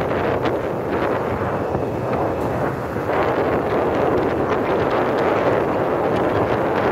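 Steady wind buffeting the microphone of a camera moving along a road, with the running noise of the vehicle carrying it underneath.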